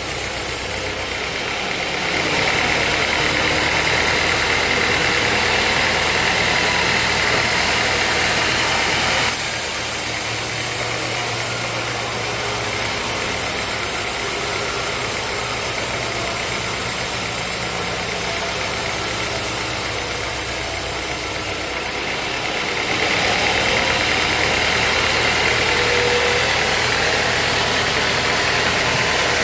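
Band sawmill running steadily with a constant low hum. It grows louder, with a hissing edge, from about two seconds in until about nine seconds, and again from about twenty-three seconds on, as the blade works through a teak log.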